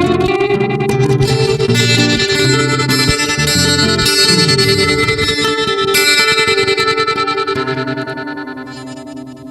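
Guitar playing the instrumental ending of a song, plucked and strummed, its notes ringing and fading away near the end.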